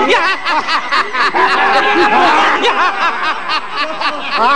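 A group of men laughing loudly together, many voices overlapping in quick 'ha-ha' bursts: a chorus of triumphant, villainous laughter.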